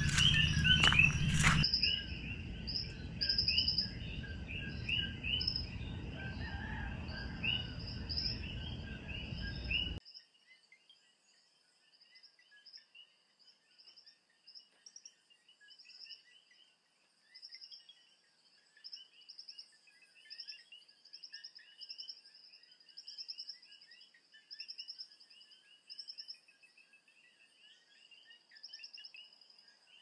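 Night chorus of Puerto Rican coquí frogs and insects: many overlapping short repeated chirps, with a few thumps at the start. About ten seconds in, the sound cuts to a fainter, cleaner chorus of the same kind of repeated chirps.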